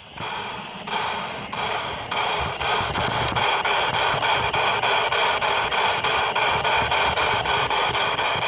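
LGB G-scale garden-railway train running, heard from on board: a steady electric motor and gear whine over the rumble of metal wheels on the track, with frequent clicks. It grows louder over the first second.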